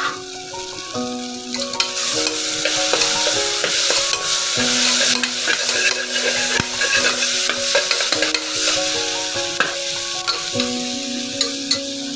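Onions, green chillies and spices sizzling in hot oil in a metal pot, stirred with a steel spoon that clicks and scrapes against the pot. The sizzle is loudest in the middle stretch. Background music plays throughout.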